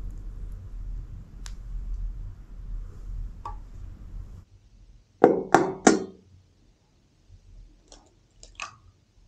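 Raw chicken and offal being handled in a stainless steel dog bowl: a few faint clicks over a low hum that stops suddenly, then three loud quick knocks a little past halfway and a couple of small clicks near the end.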